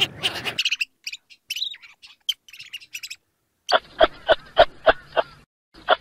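Domestic goose honking rapidly, cut off about half a second in; then scattered high bird chirps. From a little past the middle comes a quick, even run of short animal calls, about three or four a second.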